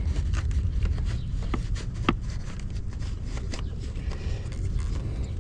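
Light handling noise, faint scrapes and a few soft clicks, as an inflatable air wedge is worked down beside an electric dirt bike's battery, over a steady low rumble.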